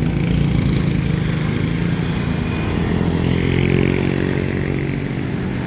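Road traffic passing close by: a motor vehicle engine running steadily, its pitch drifting slightly, over a noisy background of traffic.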